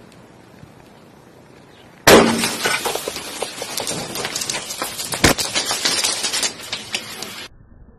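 Molten metal poured onto a block of ice blows up in a sudden loud steam explosion about two seconds in. Several seconds of dense crackling and clattering follow as ice fragments fly, with a second sharp crack midway, then the sound cuts off abruptly.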